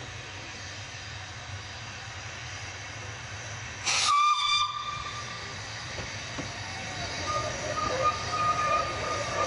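Double Fairlie 0-4-4-0T steam locomotive Merddin Emrys standing with steam hissing steadily, and one short, loud whistle blast about four seconds in.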